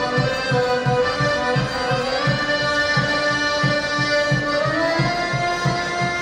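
Serbian folk dance music from Šumadija: an accordion playing a sustained melody over a quick, steady bass beat of about three to four strokes a second, with the melody stepping up in pitch near the end.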